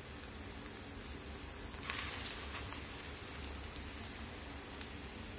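Lentil fritters frying in hot oil in a cast-iron pan: a steady sizzling hiss with scattered small crackles, and a louder burst of crackling about two seconds in.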